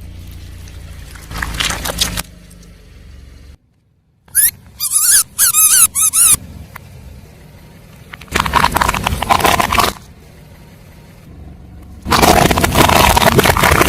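Car tyres rolling over and crushing objects: several loud bursts of crunching and crackling, and about five seconds in a run of high, wavering squeaks from something being squashed. A low vehicle rumble sits under it.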